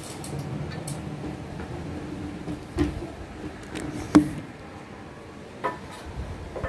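Cardboard phone box being handled and opened: a soft rustle as the lid is worked off, then a few sharp knocks as the box and lid are set down on a glass table top, the loudest about four seconds in.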